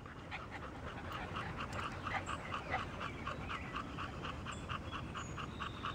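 English bulldog panting hard in a quick, even rhythm, about five breaths a second.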